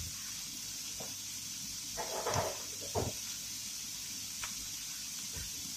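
Pork cubes frying in a pan, a steady faint sizzle as the fat starts to render, with a few soft knocks about two to three seconds in.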